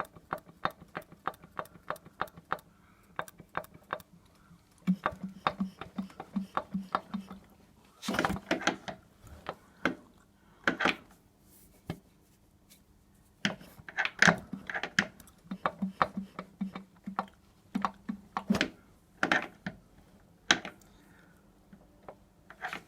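Hand tools and metal engine parts clicking and clinking as a motorcycle's cylinder heads are taken off. A quick, even run of clicks comes first, then scattered, louder knocks and clinks.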